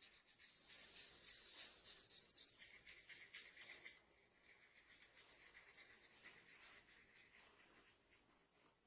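Fingers rubbing and scratching through hair against the scalp in a head massage: a faint, fast rasping, stronger for about the first four seconds, then softer.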